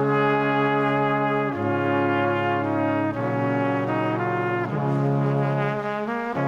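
Background music of sustained brass chords that change about every one to one and a half seconds.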